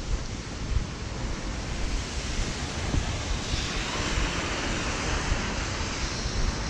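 Rainy city street noise: steady wind rumble on the microphone over the hiss of rain, with tyres hissing on wet road as a vehicle passes, swelling about halfway through and fading near the end.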